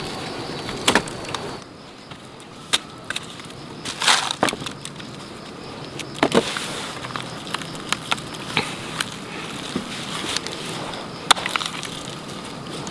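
Irregular sharp knocks and cracks, a few each second at most and uneven in strength, over a steady background hiss. A thin high steady tone stops about a second and a half in.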